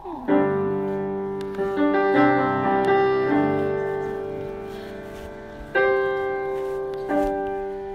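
Grand piano playing a slow song introduction: a series of chords, each struck and left to ring and fade before the next.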